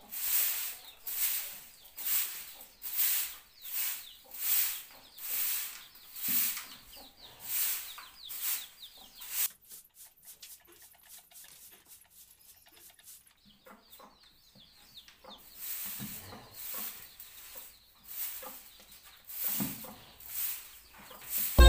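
Short hand broom sweeping a floor in quick repeated swishes, about one and a half strokes a second, breaking off for several seconds in the middle before the strokes resume.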